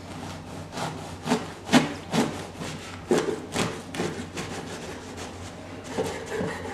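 Serrated bread knife sawing through the crust of a freshly baked rye loaf on a wooden cutting board, a rasp with each stroke at roughly two strokes a second.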